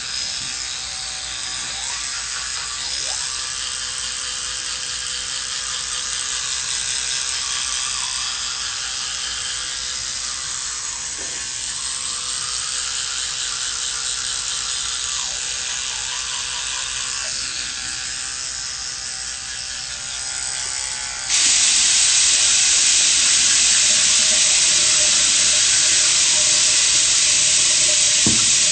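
Electric toothbrush buzzing steadily in the mouth during brushing. About three-quarters of the way through, a tap is turned on and water runs loudly into the sink with a steady hiss.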